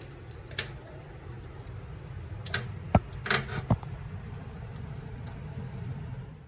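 Small metal parts clicking and clinking while a tap is being fitted, with a handful of sharp clicks, most of them bunched together about halfway through, over a steady low hum.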